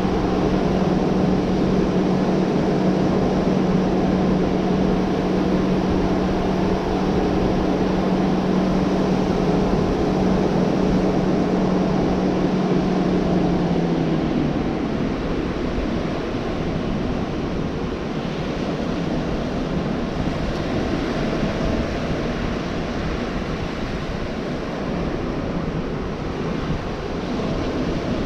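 Ocean surf washing steadily onto a beach. Over it runs a steady low mechanical hum that stops about halfway through.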